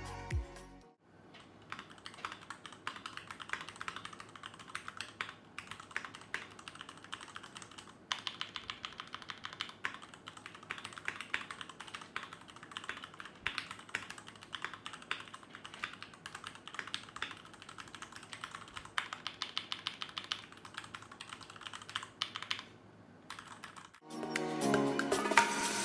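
Typing on a Tecware B68 mechanical keyboard with Gateron Yellow linear switches, in its stock, unmodded state: a fast, continuous run of key clacks with a few brief pauses. Background music fades out about a second in and comes back near the end.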